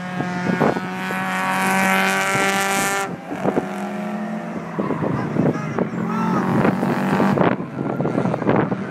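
Race car engine running at high revs, its note held steady and strong for about three seconds before it cuts off suddenly. A lower, weaker engine note follows for about four seconds. Short thumps throughout from wind buffeting the microphone.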